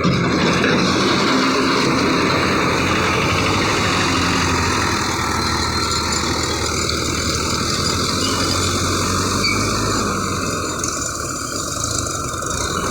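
JCB 3DX backhoe loader's diesel engine running steadily. The sound comes in suddenly and eases slightly near the end.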